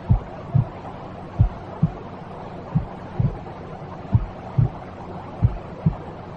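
Slow heartbeat, a double low thump (lub-dub) about every second and a half, over a steady white-noise hiss, as played to soothe a baby to sleep.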